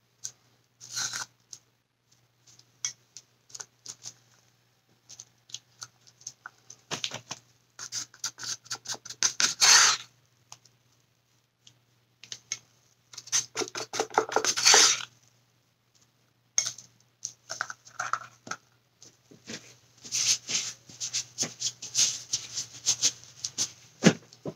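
A craft stick working thick glittery paint onto a small canvas and in a paint cup: irregular taps, clicks and scratchy scraping strokes. Two longer, louder scrapes come about ten and fifteen seconds in, and a busier run of scraping comes near the end.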